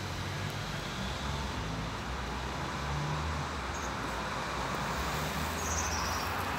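Steady low rumble of city traffic, with the low drone of an engine running nearby.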